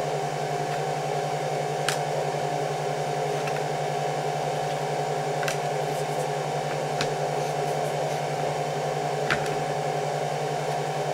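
Steady electrical hum and whir from a running electric fan and a solar power setup, with a low buzz and a higher steady tone. A few faint taps come from molasses balls and a knife being handled on a plastic container lid.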